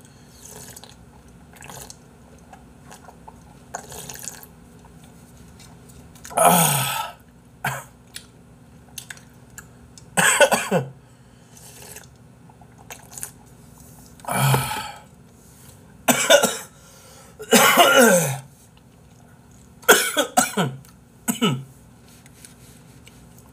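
A man coughing and clearing his throat after a drink went down the wrong way. There are about seven separate coughs, starting some six seconds in and spread through the rest.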